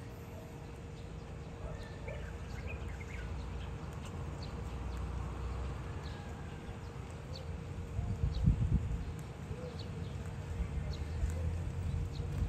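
Early-morning town ambience: a steady low rumble that swells louder about eight seconds in, with faint short high chirps scattered through it and a faint steady hum.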